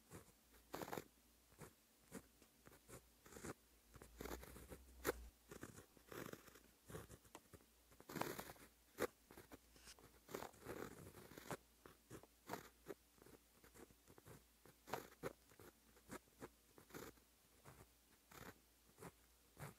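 Fine-tipped pen scratching on paper while Japanese characters are handwritten: many short, quick strokes and a few longer ones, with brief pauses between characters. Quiet.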